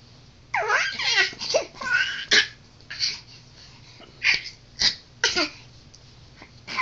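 A nine-month-old baby vocalising in short, high squeals and laughing babble. There is a quick string of them in the first couple of seconds, then a few single short squeals.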